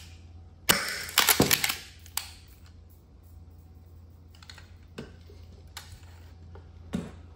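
Marushin 6 mm air gun's action being worked by hand: several sharp clacks in the first two seconds, then a few lighter clicks. This is chambering a round with the trigger held down.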